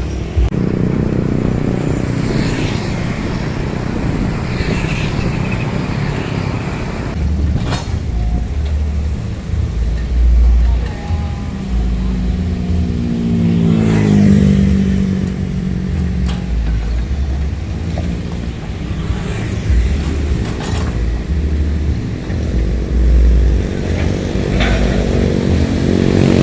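Hydraulic excavator diesel engines running and revving up and down under working load, with a few sharp knocks along the way.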